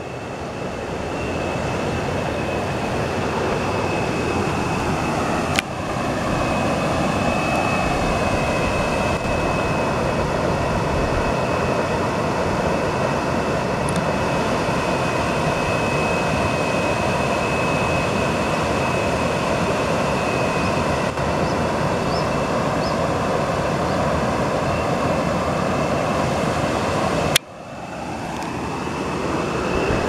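Rushing water of a river cascade: whitewater tumbling over rocks, a steady, even noise with a thin steady high tone over it. The sound drops suddenly near the end and builds up again.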